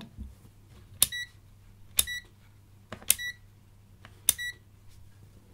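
MILESEEY MC616 multimeter's rotary selector switch clicked through four positions, about one a second, each click followed at once by a short high beep from the meter.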